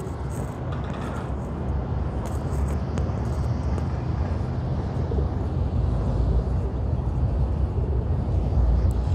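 Steady low rumble of outdoor city background noise, slowly growing louder, with a few faint clicks in the first few seconds.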